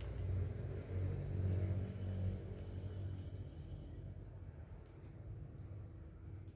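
A low engine hum that is loudest in the first couple of seconds, then fades away, with a few short bird chirps now and then above it.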